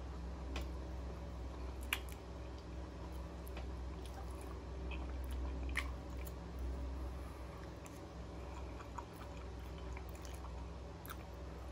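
Close-up chewing and wet mouth sounds of someone eating a mackerel croquette and sweet peas, with a few short sharp clicks scattered through it, over a steady low hum.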